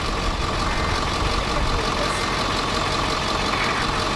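A vehicle engine idling with a steady low rumble, heard from inside the van.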